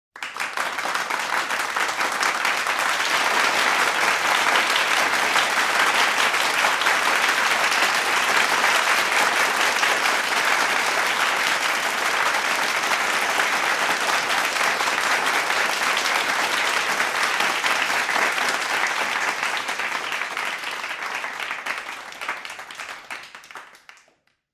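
Medium-sized crowd applauding: dense, steady clapping that starts abruptly, holds for about twenty seconds, then thins out and dies away near the end.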